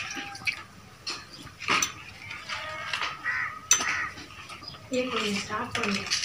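Potatoes being scrubbed by hand in a plastic bowl of water, with handling noise and a few knocks against the bowls. About three and a half seconds in, a sharp clink rings off the steel bowl as a washed potato is put into it.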